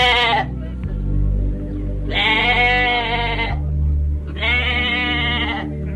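Three bleats from a sheep or goat: one ending just after the start, then two long ones about two seconds apart. Under them runs background music with steady low notes.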